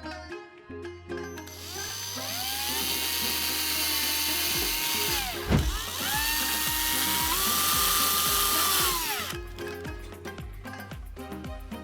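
Small electric drill run in two spells. Its motor whine rises, holds steady, winds down about four seconds in, then spins up again and holds at a slightly higher pitch before stopping. Plucked-string background music plays underneath.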